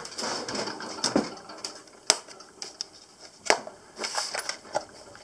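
Tools and small metal parts clattering as they are put away in a metal tool chest: scattered clicks and taps, with two sharper knocks about two seconds and three and a half seconds in.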